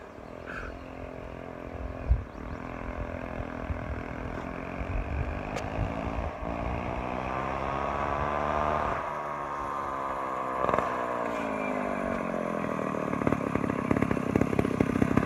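Two-stroke McCulloch chainsaw engine driving a go-kart, its pitch climbing steadily as the kart speeds up, then falling after about nine seconds as it slows. The engine grows louder and more clattery as the kart comes close, with a brief thump about two seconds in.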